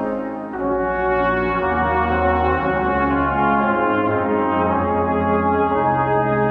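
Brass quartet of trumpet, flugelhorn, French horn and tuba playing held chords, the notes changing about once a second over moving tuba bass notes. There is a brief break about half a second in as a new phrase begins.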